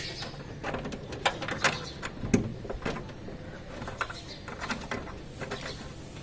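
Scattered plastic clicks and scrapes as a Honda City's tail lamp bulb socket is gripped and twisted anticlockwise to free it from the rear light cluster.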